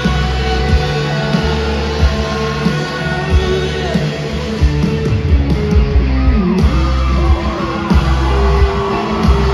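Live rock band playing on stage: electric guitars and bass guitar over drum hits, heard loud from within the crowd. Past the middle, sliding notes bend up and down.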